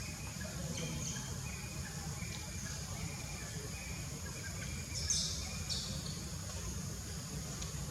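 Outdoor ambience: a low steady rumble, a constant high insect-like drone, and many short faint chirps. Two brief, louder high squeaks or chirps come about five seconds in.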